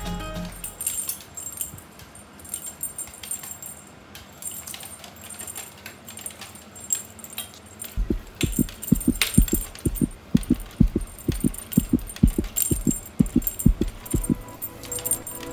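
Light clinking and jingling from a cat teaser wand toy being jiggled. About halfway through, a steady run of soft low thumps starts, about three a second, and carries on for several seconds.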